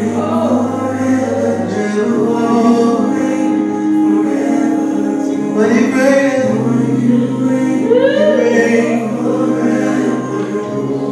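Gospel song sung by a choir and congregation over instrumental backing, with long held bass notes that change every few seconds.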